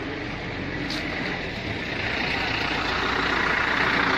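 Rushing waterfall, a steady roar of falling water that grows louder about halfway through, over a steady low hum.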